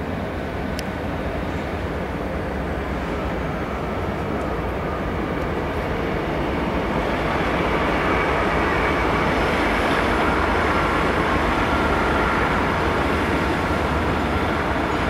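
Class 67 diesel-electric locomotive, with its two-stroke V12 engine running, hauling passenger coaches slowly toward the listener. It grows louder as it approaches, most of all from about halfway through.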